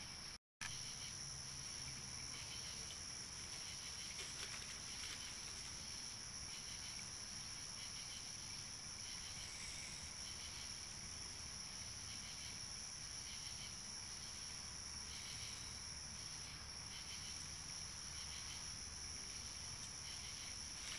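Crickets chirping steadily in the night, faint, with repeated pulses of chirping over a continuous high trill. The sound cuts out briefly about half a second in.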